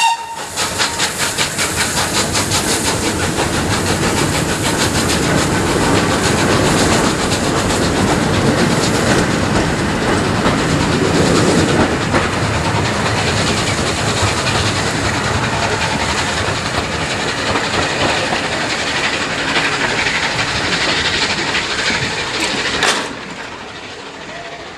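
Steam train passing beneath: the locomotive's exhaust chuffs at about four beats a second at first, then the coaches rumble and clatter over the rails. The noise drops away sharply about 23 seconds in as the last coach clears.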